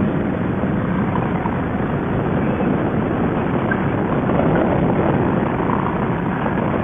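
Harley-Davidson V-twin touring motorcycle riding at highway speed: the engine running steadily, mixed with wind and road noise.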